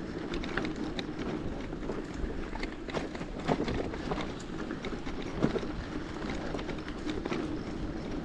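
Bicycle rolling along a rough country road: a steady tyre rumble with scattered clicks and rattles.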